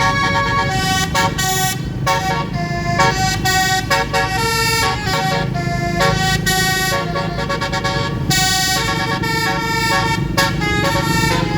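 Basuri telolet musical horn playing a quick tune of short, stepped notes, over a steady low vehicle rumble.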